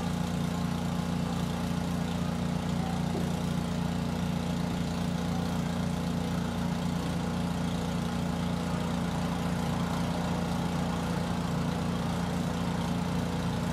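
An engine running steadily at an even, unchanging pitch.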